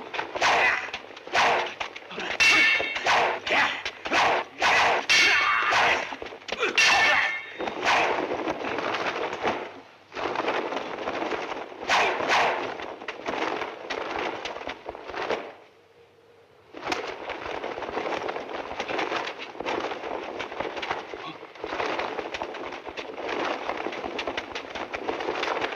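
Swords clashing in a film fight: a quick run of sharp metallic clangs with ringing over the first several seconds. This is followed by noisier, less distinct fight sound, with a short lull just past the middle.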